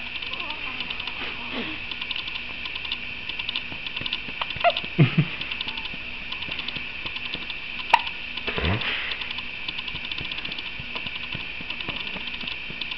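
A baby hiccuping: a few short squeaky hiccups, each dropping in pitch, in pairs about five and eight seconds in.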